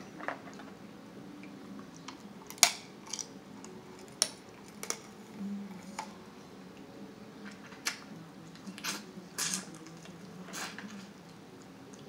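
Crab-leg shells being snapped and cracked by hand, a series of irregular sharp cracks and clicks, the loudest about two and a half seconds in, with eating sounds in between.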